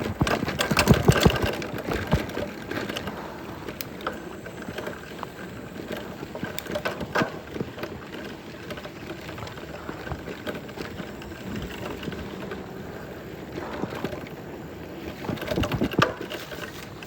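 Loose factory kickstand on a mountain bike clunking and rattling at irregular moments as the bike is ridden over bumps.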